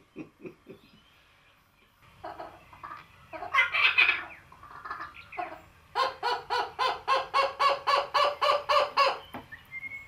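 Laughing kookaburra calling: an uneven chatter of calls that breaks into a rapid, even run of laughing notes, about four a second, which stops shortly before the end.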